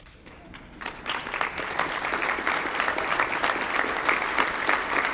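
Large seated audience applauding: quiet at first, then many hands clapping break out about a second in and build into steady, full applause.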